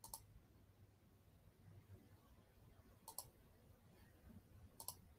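Near silence broken by a few faint computer mouse clicks: one at the start, a quick double click about three seconds in and another pair near the end.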